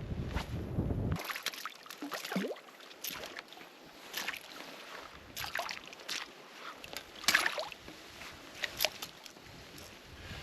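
Water splashing and sloshing around a kayak in irregular short bursts, with a low wind rumble on the microphone in the first second.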